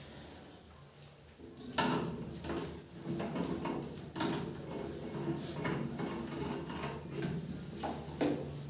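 Handling noises: several sharp knocks and clicks over a steady low hum that starts about a second and a half in.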